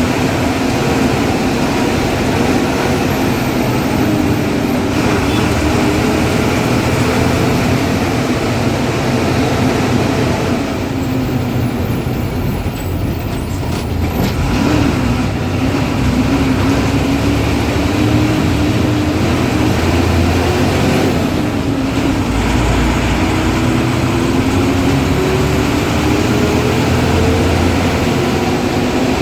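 Ashok Leyland bus diesel engine running under load, its pitch rising and falling several times as it accelerates and eases off, with a faint high whistle at times.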